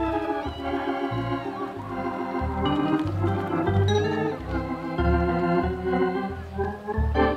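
Organ music: an electric organ playing a lively tune of held chords over a pulsing bass line.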